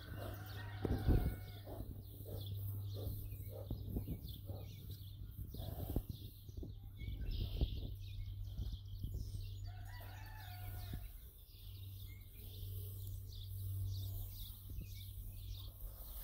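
Scattered knocks and rustles as a brown bear rubs its back against a wire-mesh fence post. A bird calls twice, about a second in and again around ten seconds, over a low steady hum.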